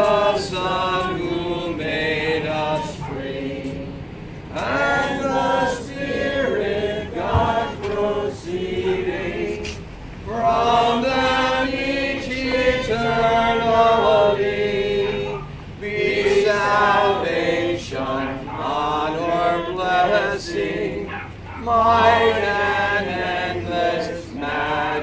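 A congregation singing a hymn together in phrases with short breaks between them.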